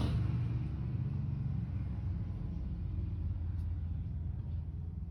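Sleeping cat snoring: a low, steady rumble that fades slightly.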